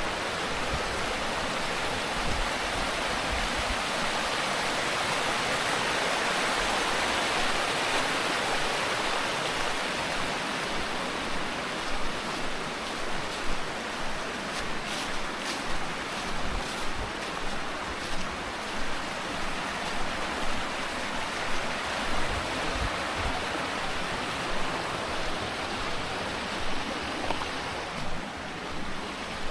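Steady rush of a mountain stream. From about halfway on, soft footsteps fall about once a second over it.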